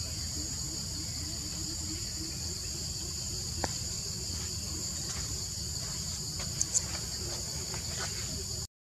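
Steady, high-pitched drone of a forest insect chorus, over a low rumble, with a few small clicks or snaps. The sound cuts out briefly near the end.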